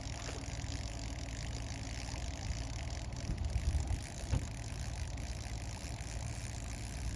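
A boat's outboard motor running steadily at low trolling speed, a low even rumble, with a few louder low knocks about halfway through.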